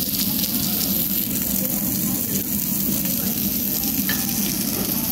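Thick slabs of pork belly sizzling on a hot round barbecue grill plate: a steady frying hiss. A low steady hum runs underneath.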